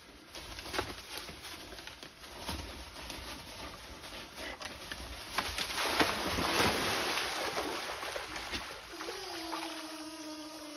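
Two white-tailed deer bucks fighting: sharp clicks and rustling throughout, swelling to a loud rushing hiss about six seconds in. Near the end a steady pitched tone falls slightly in pitch for about two seconds.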